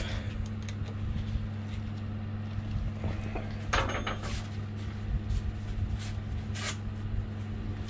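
A steady low hum with no machine running, broken by a few short knocks about four seconds in and again near seven seconds, as gear-change parts or tools are handled.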